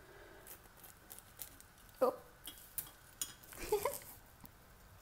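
Light clicks and taps of a utensil against a non-stick pot and dry instant noodles, with two brief vocal murmurs, one about two seconds in and one near the end.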